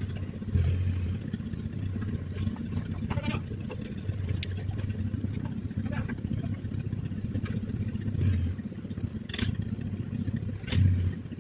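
1955 John Deere 420C crawler's two-cylinder engine running steadily, swelling louder briefly three times, with a few sharp clanks.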